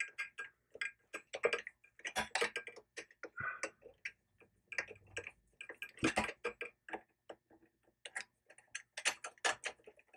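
Screwdriver backing out the screws of a bathtub trip lever faceplate: a run of small, irregular metal clicks and ticks.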